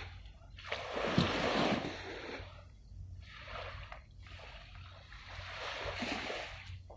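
Small waves washing and splashing against the shore close by, in two swells, one about a second in and another near the end.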